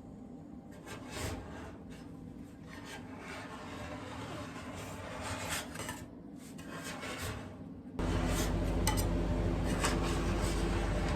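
Metal spatulas scraping and rubbing ice cream across a frozen cold plate in irregular strokes. About eight seconds in, a louder steady hum starts suddenly.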